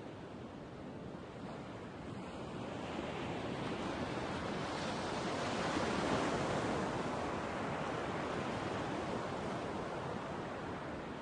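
Ocean surf: an even wash of waves that builds to a peak about halfway through and slowly ebbs away.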